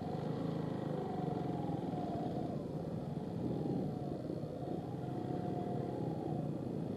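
Motorcycle engines running steadily at low, creeping speed.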